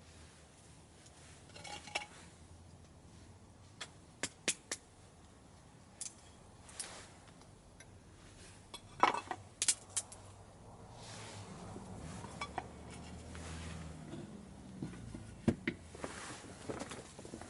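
Metal camp gear clinking and knocking: scattered sharp clinks and taps, with a quick cluster of louder ones about halfway through. A low hum rises for a few seconds after that.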